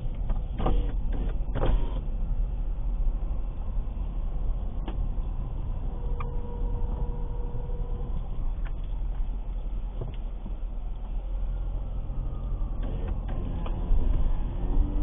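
Road and running noise of a 2006 Ford Escape Hybrid, with a thin, steady squeal about halfway through and a fainter, gliding one later. The owner tags the squeak as coming from the brakes.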